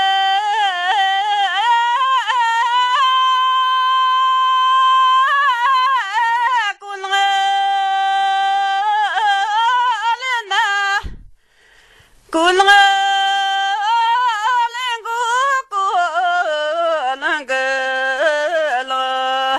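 A woman singing an Amdo Tibetan folk song unaccompanied, holding long high notes broken by quick ornamented turns, with a short pause about halfway through.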